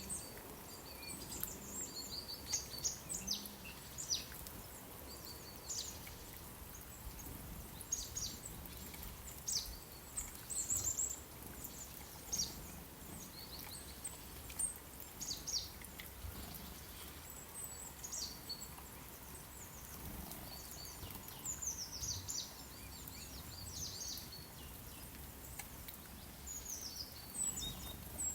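Small songbirds chirping: short, high notes every second or two, some in quick clusters, over a faint low background rumble.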